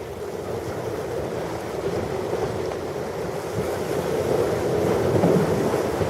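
Ocean waves washing on a shore, a steady rush of surf that swells to a peak about five seconds in.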